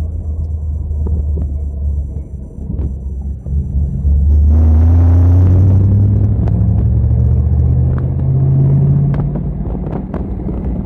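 Car engine and road noise heard from inside the cabin: a low rumble, then about four seconds in it grows louder as the car accelerates, the engine note climbing in pitch before easing off about nine seconds in.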